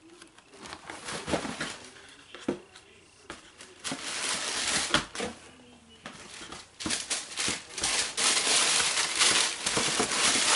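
Cardboard shoe box and packing paper being handled as a sneaker is taken out: scattered knocks, then crinkling and rustling that grows louder and almost continuous in the second half.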